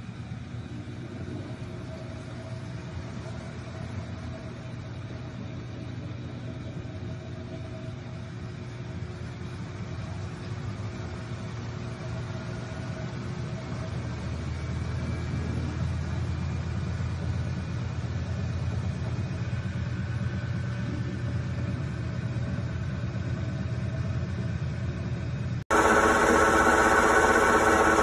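BLACK+DECKER portable washing machine running, a steady low motor hum that slowly grows louder. Near the end it gives way abruptly to the much louder spin cycle, with a steady whine from the motor.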